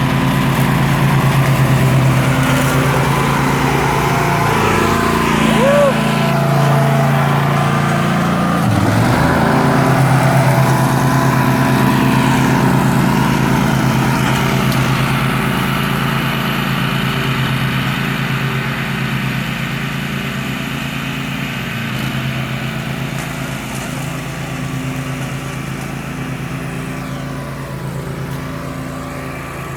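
Riding lawnmower engine running steadily, with a brief dip about nine seconds in, gradually getting quieter over the second half.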